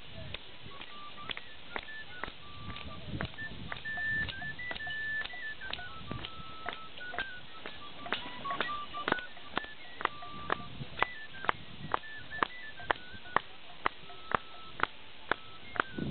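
Dance tune played on a high, whistle-like pipe, a single line of clear notes moving up and down in steps, with sharp, regular beats about two a second that grow louder in the second half.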